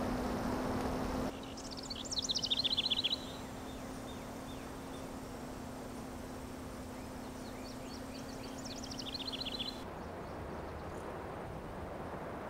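A small songbird singing two short phrases of rapid notes falling in pitch, about six seconds apart, over quiet outdoor ambience with a steady low hum. For the first second or so a louder rushing noise covers everything, cutting off abruptly.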